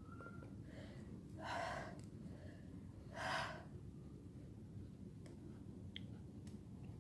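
A person sick with a cold breathing hard in a sneezing fit: two short, sharp breaths about a second and a half apart, over a faint low hum.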